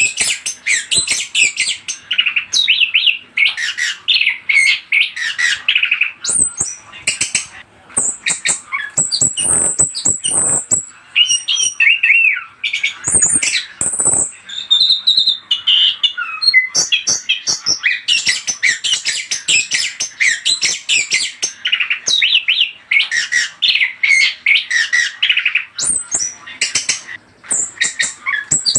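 Orange-headed thrush (anis kembang) singing a fast, unbroken, varied song of chirps, whistles and harsh squawky notes, the kind of song played as a lure to set other thrushes singing.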